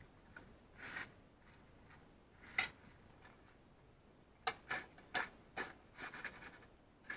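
Cut small king oyster mushrooms tumbling and rustling in a stainless steel bowl as it is shaken by hand, with a sharp tap about two and a half seconds in and a quick run of taps and rustles in the second half.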